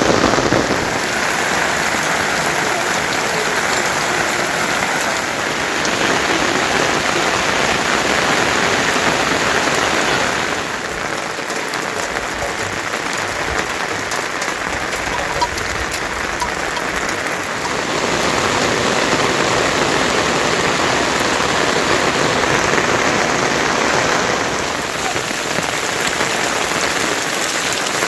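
Heavy monsoon rain falling, a steady hiss of rain on surfaces whose level and tone change abruptly a few times.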